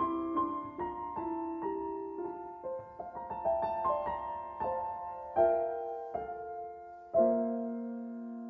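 Background piano music: a gentle melody of struck notes, with a chord struck about seven seconds in that rings and fades.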